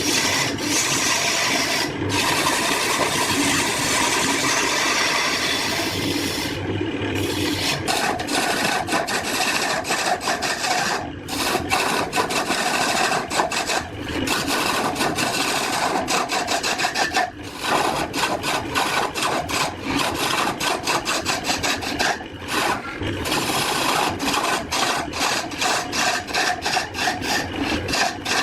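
Wood being scraped with a hand tool in quick repeated strokes. It is a fairly continuous scraping for the first several seconds, then breaks into rapid separate strokes.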